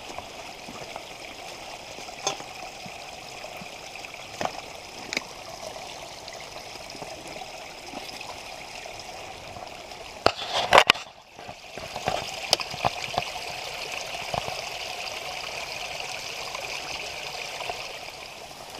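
Creek water running steadily over rocks, a constant rushing. Scattered clicks and knocks sound over it, loudest in a short cluster about ten and a half seconds in, after which the sound briefly drops away.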